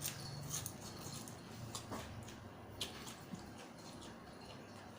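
Faint wet mouth sounds of someone eating spicy Thai seafood salad: soft chewing and lip smacks with a few small scattered clicks.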